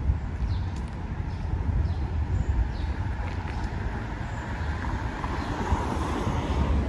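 Wind buffeting the phone's microphone over street traffic, with a car passing close by about five to six seconds in.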